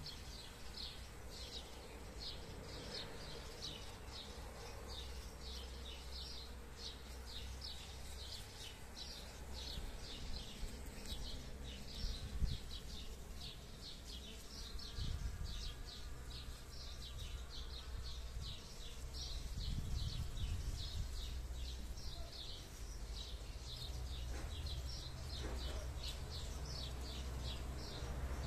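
Honeybees buzzing as they forage on peony flowers, under a high chirp that repeats evenly about three times a second. A low rumble of wind on the microphone rises and falls.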